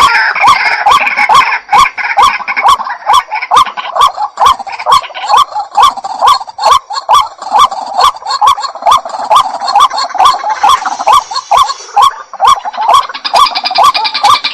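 Waterhen (jal murgi) calling: a loud, steady series of short upswung notes repeated about three times a second, without a break.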